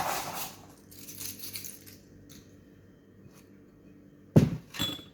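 Close-up crunching and chewing of a fattoush salad with crisp toasted pita: crisp crunches through the first two seconds, then quiet, then two louder crunches near the end.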